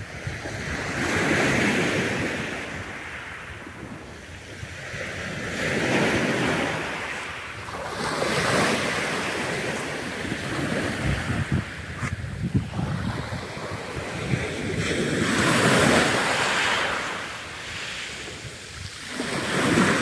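Black Sea waves breaking on the shore, swelling and falling away every few seconds, with wind buffeting the microphone.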